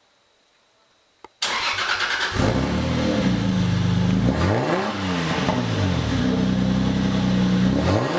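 Toyota Supra engine starting up through an exhaust with its catalytic converter hollowed out and a cannon-style tip. It catches suddenly about a second and a half in and runs loud, revved up and back down once in the middle and again near the end.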